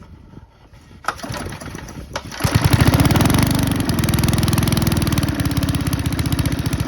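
Masport home cultivator's small engine being started: after a couple of sharp clicks it catches about two and a half seconds in, revs up and settles into a steady, fast-firing run.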